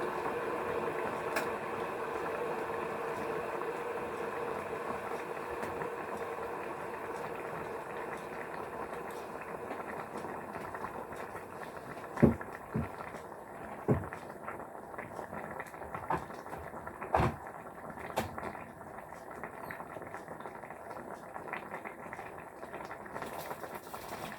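Hot water bubbling steadily, with a few sharp knocks and clinks of kitchenware around the middle.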